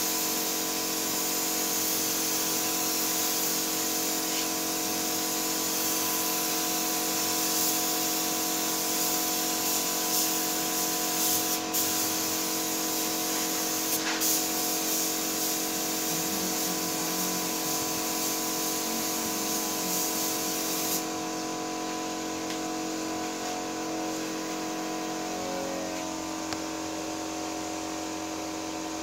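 Paint spray gun hissing with compressed air as it atomises paint onto a car body, the hiss stopping abruptly about three-quarters of the way through. A steady machine hum continues under it.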